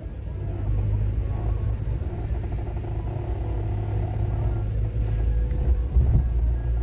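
A car being driven: a steady low rumble of engine and road noise.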